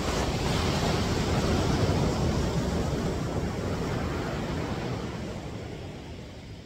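Surf: a wave breaking on the beach, the rush of water loud at first and then slowly fading away over several seconds.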